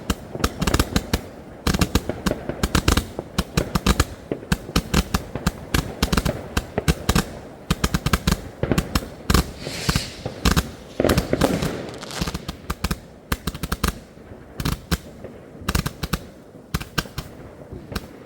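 Argento GaTeLing Brocade-Strobe firework battery firing, with dense, rapid, overlapping cracks and pops from its strobe effects, thinning out near the end.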